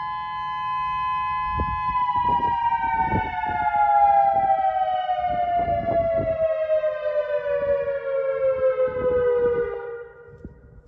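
Outdoor civil-defense warning siren holding a steady two-note chord, then winding down from about two seconds in: both notes fall steadily in pitch for about eight seconds and fade out near the end as the monthly test finishes.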